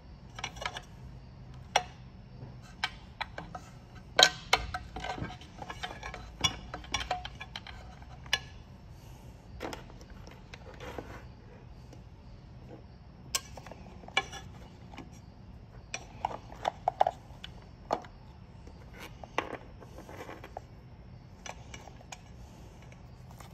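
Wiring leads and plastic crimp connectors being handled and pushed together against a metal shuttle box: scattered sharp clicks, taps and rustles, busiest a few seconds in and again past the middle.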